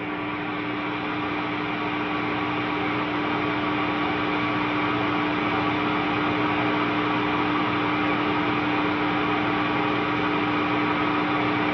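Steady hum and hiss from a 1971 Sunn Sceptre amplifier and its 3x12 cabinet with the guitar plugged in and no notes played: one strong hum tone over a wide hiss, swelling a little over the first few seconds and then holding steady.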